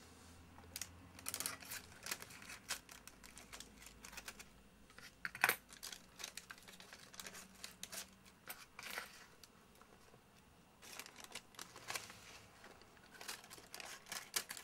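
Masking paper and sticky tape being peeled off a spray-painted scale model: quiet paper crinkling and scattered small crackles, with one sharper snap about five and a half seconds in.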